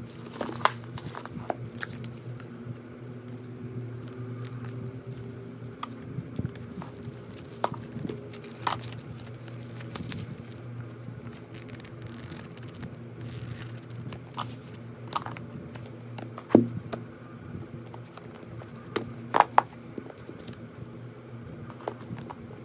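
Hands handling paperback manga volumes: pages flipped and books and their plastic shrink-wrap shifted, giving scattered rustles, crinkles and a few sharp taps, the loudest late on, over a steady low hum.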